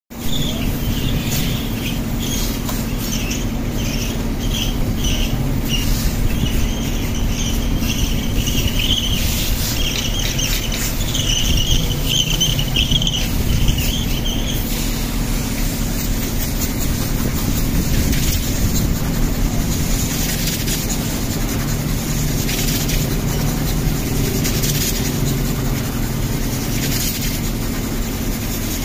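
Repeated high squeaks of a palm rubbing vinyl lettering onto a bus windscreen's glass, coming in short strokes and then longer drawn squeaks, stopping about halfway through. A steady low hum runs underneath.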